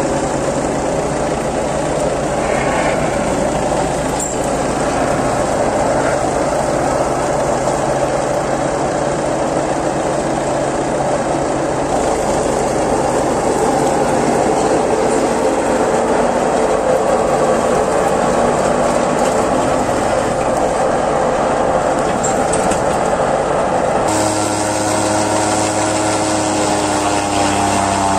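Massey Ferguson tractor engine running steadily under load, driving a PTO forage chopper that is cutting napier grass and blowing it through its spout. Near the end the sound changes suddenly and the engine's note comes through more clearly.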